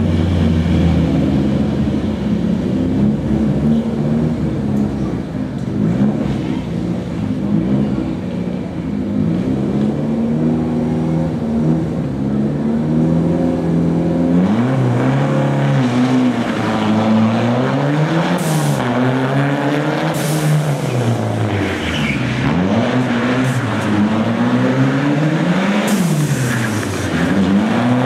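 Ford Sierra RS Cosworth rally car's turbocharged four-cylinder engine running steadily at the start line, then, about halfway through, revving up and dropping back again and again as it accelerates away and lifts off.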